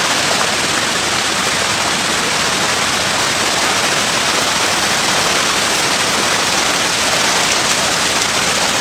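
Loud, steady rushing hiss like static, even and unchanging throughout, with no speech or separate splashes standing out.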